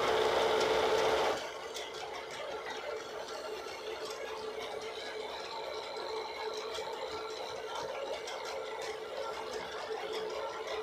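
Wood lathe's electric motor running steadily with a constant hum and a faint high whine. It is louder and noisier for about the first second and a half.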